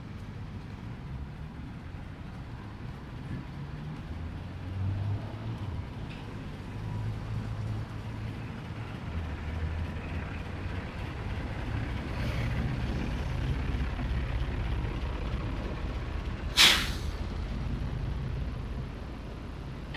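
Street traffic: a heavy vehicle's engine rumbles, building gradually, then gives one sharp, short hiss of air brakes about three-quarters of the way through.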